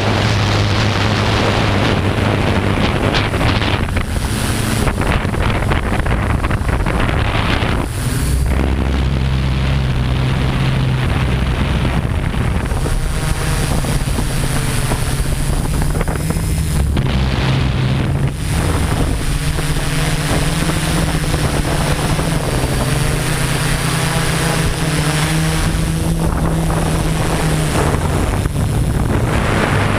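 Homemade multirotor drone's electric motors and propellers buzzing steadily in flight. Their pitch shifts as it manoeuvres, with a noticeable change about eight seconds in, and wind rushes over the microphone.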